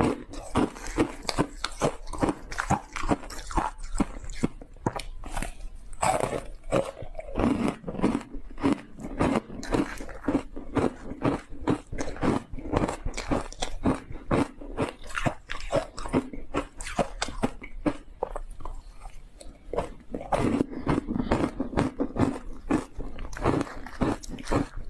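Crunching and chewing of a block of ice coated in matcha tea powder: a dense run of sharp crunches, several a second, without a break.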